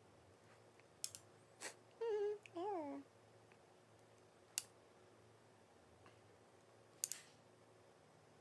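A woman's voice making two short wordless hums about two seconds in, the second one sliding down in pitch. A few sharp clicks sound before and after.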